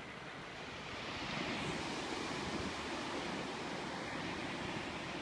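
Ocean surf breaking below a bluff: a steady rushing wash that swells about a second in.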